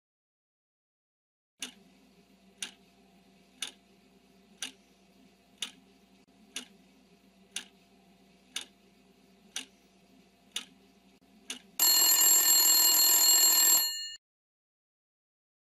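Countdown-timer sound effect: a clock ticks about once a second, eleven ticks in all. Then an alarm bell rings loudly for about two seconds as the countdown runs out, and cuts off suddenly.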